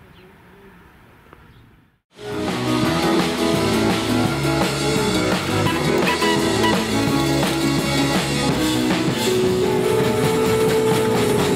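Music with drums and guitar, starting suddenly about two seconds in after a short faint stretch.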